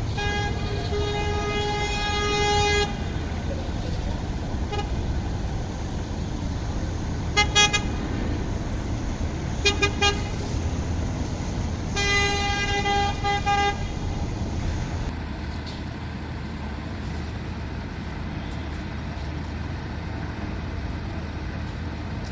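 A vehicle horn sounding in separate toots: a long one of about three seconds at the start, a short toot, two quick beeps, then another long toot. Beneath it, the steady low rumble of heavy engines running.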